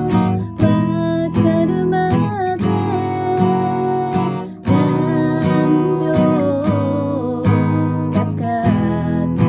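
Acoustic guitar strummed in a steady rhythm, accompanying a solo voice singing a melody.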